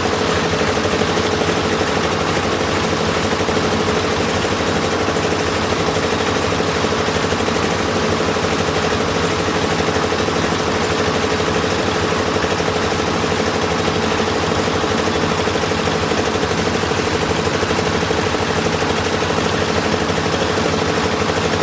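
Heavy piling machinery running steadily: an engine with a strong constant hum and a fast, even pulsing beat.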